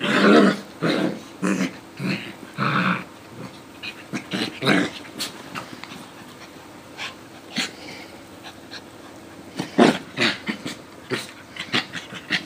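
Two small dogs, a Coton de Tulear and a Yorkie–Löwchen mix, play-growling and snarling as they wrestle. The growls come in short bursts, several in the first three seconds and a loud one about ten seconds in.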